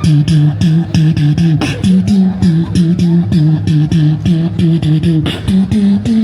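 Beatboxing: quick tongue clicks, about five a second, over a low sustained tone that steps between two pitches.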